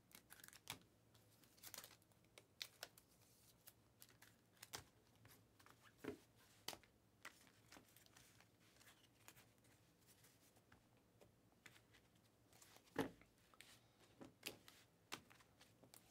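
Faint, scattered rustling and light clicks of trading cards and their plastic packaging being handled, with a louder tap about thirteen seconds in.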